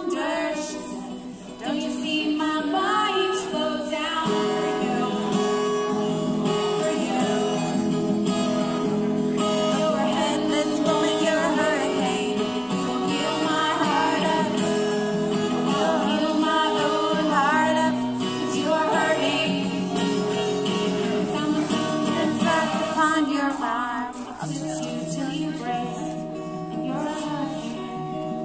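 Live song: a woman singing with wavering, sustained notes over a strummed acoustic guitar. The music gets a little quieter near the end.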